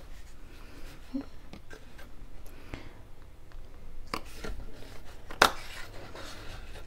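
Handheld 1/8-inch hole punch snapping through cardstock: a few soft clicks, then two sharp clicks about a second apart a little past halfway, the second the loudest, with light paper rustling.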